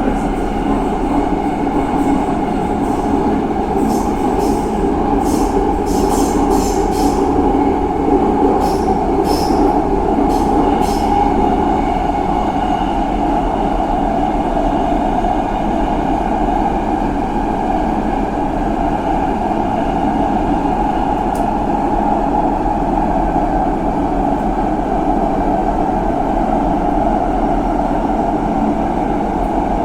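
Subway train running: a loud, steady rumble, with a run of sharp high clicks from about four to eleven seconds in.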